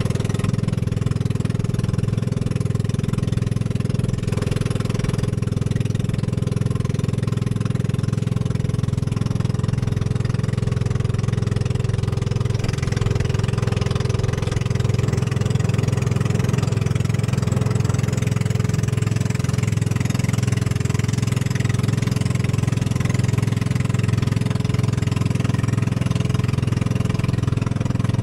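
Small motor of a wooden outrigger fishing boat running steadily at cruising speed, with the hiss of water rushing past the hull.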